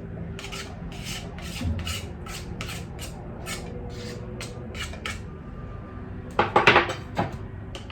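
A spoon scraping a cooking pan in quick even strokes, about three a second, as onions are stirred, then a louder clatter of utensil against pan near the end.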